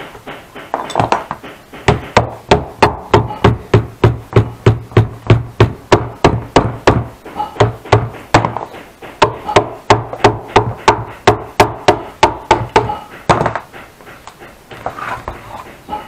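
A hand hammer beating a reinforcement piece down onto the rim of a saddle, in a long, even run of sharp blows at about three to four a second. The blows are lighter taps at the start and again near the end.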